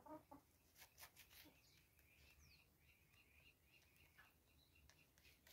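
Near silence from a foraging rooster: a brief soft cluck right at the start, then scattered faint taps as it pecks at the dusty ground, with a few faint distant bird chirps.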